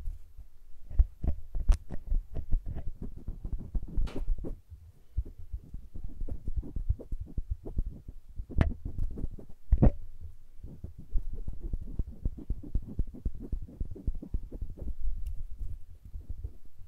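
Close-up ASMR hand sounds: fingertips rubbing and fluttering right at a stereo microphone, giving a quick, irregular run of soft low thumps and crackles with a few sharper clicks.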